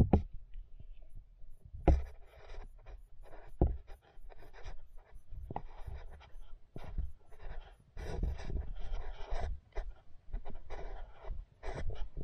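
Irregular knocks and scratchy scraping picked up underwater: turtles' claws and shells scraping and bumping against a plastic tub floor right by a submerged action camera.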